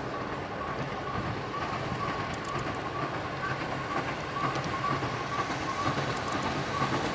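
Pere Marquette 1225's North Pole Express excursion train rolling by: a steady rumble of wheels on rail with a regular beat, gradually getting louder.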